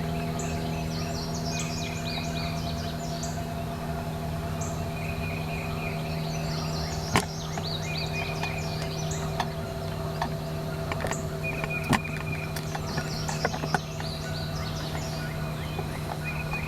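Small songbirds chirping and trilling again and again over a steady low hum, with a few sharp clicks in the second half.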